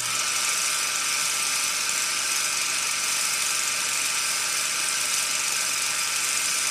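Old film projector running as a sound effect under a countdown leader: a steady, hissy whir with a low hum underneath.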